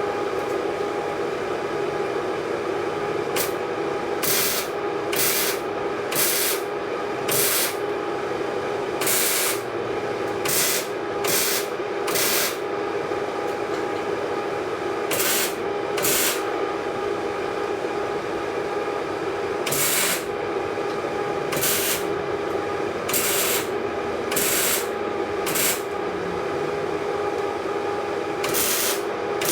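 Arc welding in short stitches: about twenty brief crackling bursts of the arc, a fraction of a second to about a second each, over the welder's steady buzz. The wastegate on a turbocharged exhaust is being welded shut.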